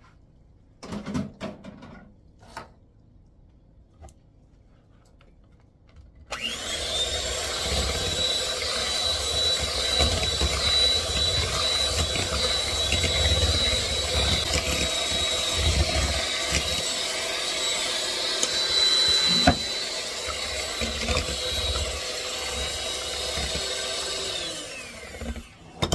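Electric hand mixer switching on about six seconds in and running steadily with a high whine, its twin beaters whisking vanilla instant pudding mix into milk in a glass bowl. One sharp knock partway through, and the mixer shuts off just before the end; a few soft handling knocks before it starts.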